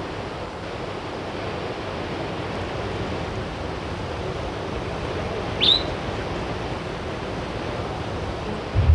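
Steady rush of flowing river water, with a single short, rising bird chirp about five and a half seconds in.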